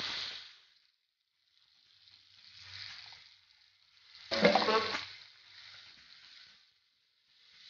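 Meat sizzling in oil in a hot wok while it is stirred with a wooden spatula, the sizzle fading out and coming back. About four seconds in, sauce poured onto the meat brings a short, much louder burst.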